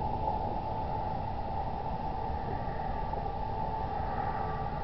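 Steady background hiss and rumble from an outdoor security camera's microphone at night, with no sudden boom or bang; faint thin tones come in near the end.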